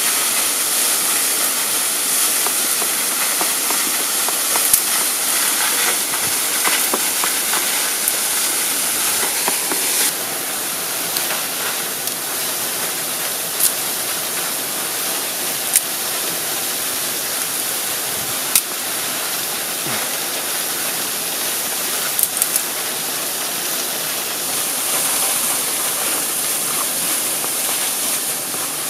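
Steady rush of a waterfall, with a few sharp knocks of a stone crushing chili peppers against a river rock.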